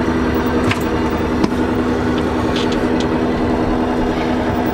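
A sailing yacht's diesel engine running steadily with an even hum, with a couple of short clicks or knocks about a second in.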